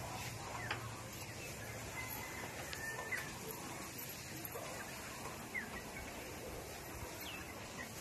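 Scattered short bird chirps and a few faint clicks over a steady low hum of shed ambience.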